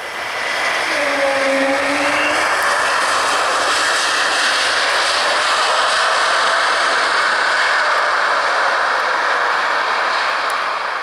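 Jet airliner's engines close by: a loud, steady rush, with a few whining tones that dip slightly in pitch in the first couple of seconds. The sound cuts off suddenly at the end.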